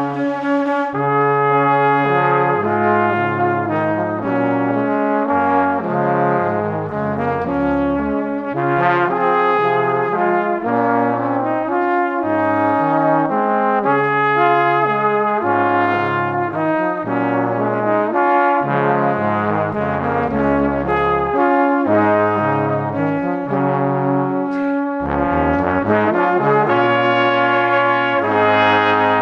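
Background music of slow, held chords over a bass line that changes note every second or two.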